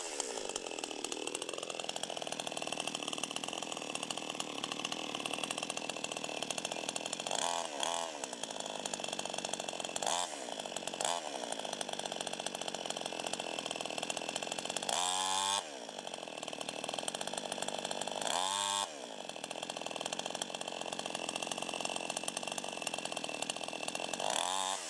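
CD52H two-stroke chainsaw running under throttle, cutting a coconut tree trunk bottom-up, with its pitch sweeping up and back about six times as the throttle and load change.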